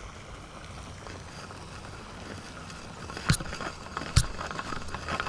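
Two sharp knocks about a second apart, a little past halfway, with a few lighter clicks around them, from hands handling a homemade wooden fishing rod and its wooden spool reel. A steady low hiss runs underneath.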